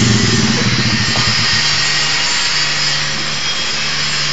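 Small four-stroke engine of a Honda underbone motorcycle idling. It runs a little higher at first as the bike comes to a stop, then settles into a steady, even idle hum about a second and a half in.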